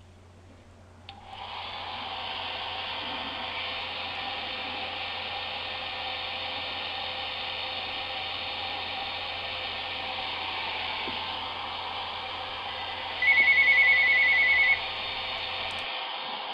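Hair dryer switched on at its high setting about a second in, then running steadily: a blowing hiss with a motor hum. Near the end a loud, fast electronic beeping sounds for about a second and a half over it.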